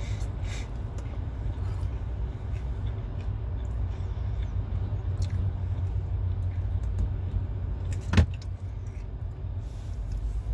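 Steady low rumble of a parked truck's idling engine heard inside the cab, with one sharp click about eight seconds in.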